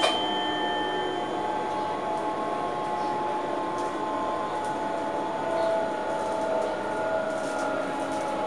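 Cab of an NS SLT electric train on the move: a steady electric whine of several tones that slowly drift up and down in pitch over running noise, with faint ticks from the wheels on the track and a sharp click right at the start.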